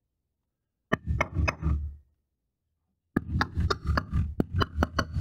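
A small steel hammer tapping along the open seam of a thin pressed-steel tube resting on a steel surface, closing the seam. A quick run of about five sharp metallic taps comes about a second in, then after a pause a longer run of about a dozen taps.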